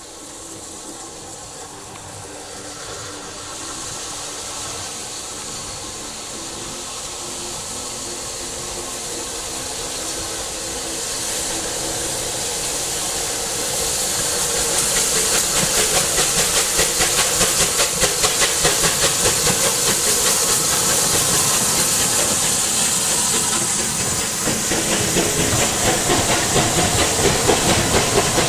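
Steam locomotive 34028 'Eddystone', a rebuilt Southern Railway West Country class three-cylinder Pacific, hauling a passenger train as it approaches and passes close by. Its steam hiss and rapid exhaust beats grow steadily louder, and the coaches rattle past near the end.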